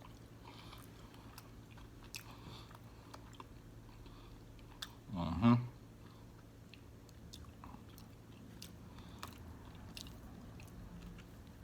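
Close-up sounds of a person chewing fufu and egusi soup: soft wet chewing and small mouth clicks. About five seconds in comes a brief vocal sound from the eater, the loudest moment.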